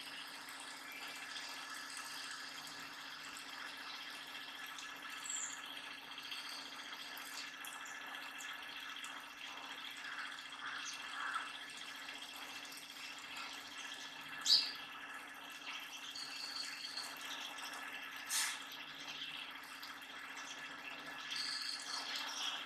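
Outdoor background sound: a steady low hum with faint steady high tones, broken by a few short bird chirps, the sharpest about fourteen and a half seconds in, and a single click about eighteen seconds in.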